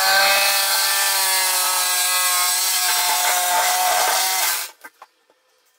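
Chicago Electric corded jigsaw running and cutting into a pine board: a steady motor whine with the blade rasping through the wood. It stops about four and a half seconds in, followed by a couple of small knocks and then near silence.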